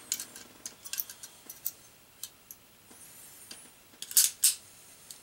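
Light clicks and ticks of steel 1911 pistol parts being handled and fitted into the frame, with two louder clicks about four seconds in.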